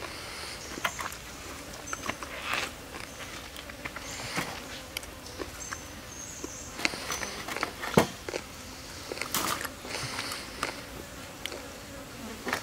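Clam shells clicking and knocking against a wire grill rack as they are set out one by one over a wood fire, with a sharper knock about eight seconds in.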